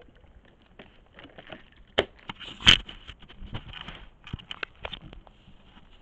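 A furry animal rubbing and pressing against a trail camera: irregular rustling, scraping and clicking of fur and claws on the housing. There are two sharp knocks, one about 2 s in and the loudest just under 3 s in, where it bumps the camera.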